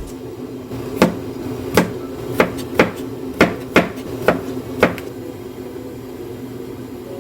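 Eight sharp knocks of a kitchen knife chopping on a cutting board, irregularly spaced over about four seconds, then stopping.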